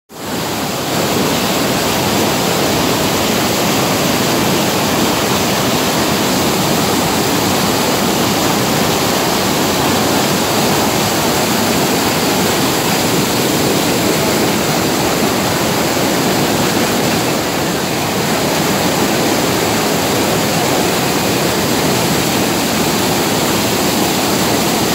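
Swat River whitewater pouring over and between boulders, a loud, steady rush of water heard close up.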